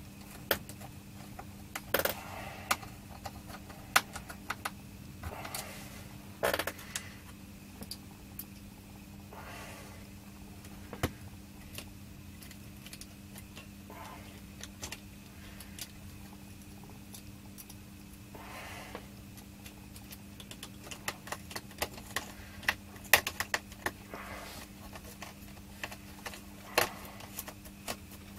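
Screws being driven back into a small power supply's circuit board and metal case with a hand screwdriver. Irregular sharp clicks and light metallic taps are heard, coming more often near the end, over a steady low hum.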